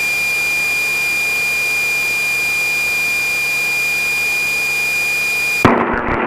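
A steady, high-pitched tone holds at one pitch without wavering, then cuts off abruptly near the end. Rough, louder aircraft cabin noise takes its place.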